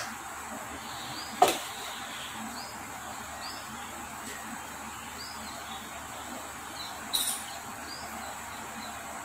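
Quiet kitchen with a steady hiss and faint high chirps about once a second. A single knock comes about a second and a half in, and a light clink of a dish near the end.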